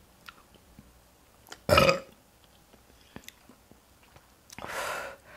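A person burps loudly once, about two seconds in. A softer breathy sound follows near the end.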